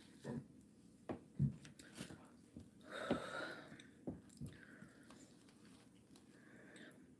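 Faint close-up chewing and mouth noises: scattered soft clicks, with a breath about three seconds in.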